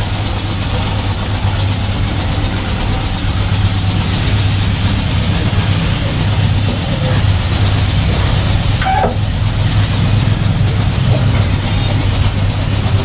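Compressed-air spray gun hissing as it sprays anti-rust primer, over the steady hum of an air compressor running.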